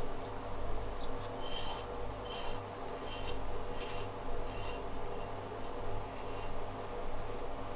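Kitchen knife blade scraping along the skin of a Pacific saury on a plastic cutting board, taking off its scales in repeated strokes, a little over one a second, over a steady low hum.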